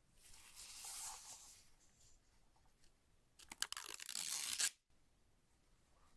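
Packaging being torn open by hand: a soft rustling rip in the first couple of seconds, then a harsher, crackling tear about three and a half seconds in that stops abruptly.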